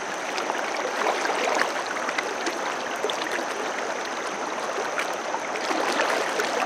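Shallow rocky river running over a riffle: a steady rush of flowing water with small splashes and gurgles.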